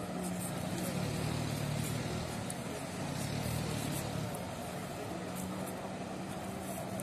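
Jet ski engine running steadily under load, pumping water up a hose to a flyboard, heard as a low drone that swells a little about a second in and eases after about four seconds.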